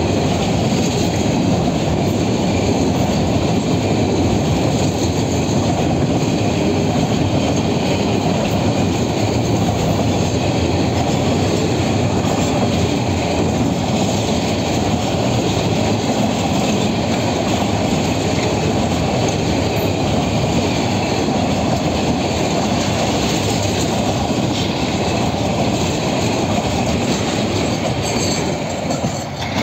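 Container flat wagons of a freight train rolling past close by: a steady rumble and clatter of steel wheels on the rails, easing off near the end as the last wagon passes.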